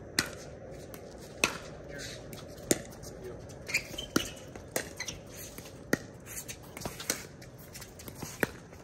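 Pickleball paddles striking a plastic pickleball back and forth in a doubles rally: sharp pops roughly once a second, about eight in all, with fainter knocks between.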